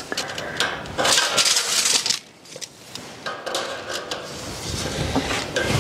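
Irregular scraping, rustling and light clinking from hand work close by. The loudest part is a scratchy rush about a second in that lasts about a second, followed by a brief lull and more scattered scraping and clicks.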